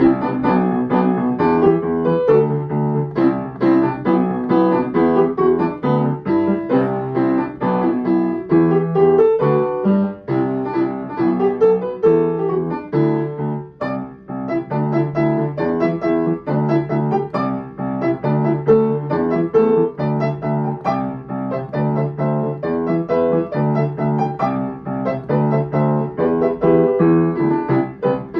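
Piano playing a lively, fast-moving tune in steady rhythm, with many quick notes over a repeating bass.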